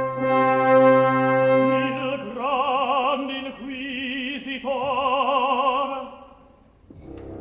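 Opera music from a live orchestral performance: a held brass chord for about two seconds, then long notes with a strong vibrato, broken by a short gap, that die away about six seconds in.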